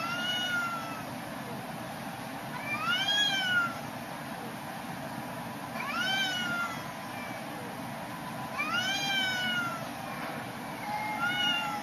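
A domestic cat meowing over and over: five drawn-out calls that rise and fall in pitch, about one every three seconds.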